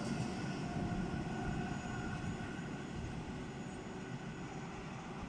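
ЭТ2М electric multiple-unit commuter train receding along the line: a steady rumble of wheels on rail with a faint whine, slowly fading.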